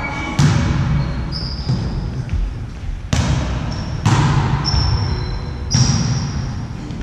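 A volleyball being struck by hands during a rally in a gym hall: four sharp smacks with a hall echo, about half a second in, then three more in the second half. Short high squeaks come between the hits.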